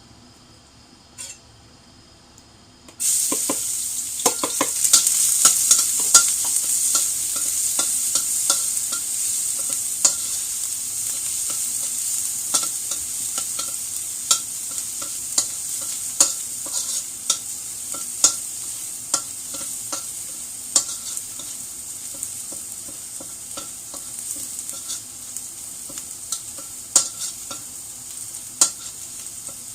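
Garlic frying in hot oil: a sizzle that starts suddenly about three seconds in and slowly dies down, with a spatula clicking and scraping against the pan about once a second as it is stirred.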